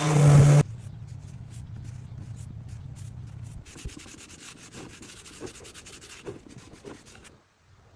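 A woodworking power tool running loudly stops abruptly about half a second in, its motor humming down. This is followed by several seconds of quick rubbing strokes on wood, like sanding.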